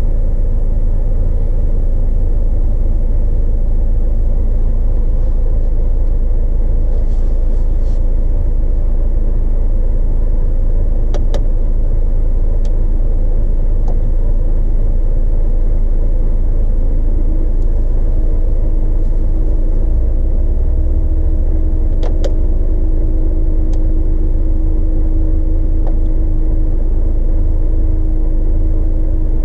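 DAF XF 106 truck's diesel engine idling steadily, heard from inside the cab. A few faint clicks, and a steady hum that rises slightly and holds a little past halfway.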